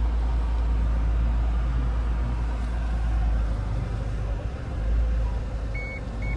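Vehicle engine running, heard from inside the cabin as a steady low rumble. A few short, high beeps sound about six seconds in.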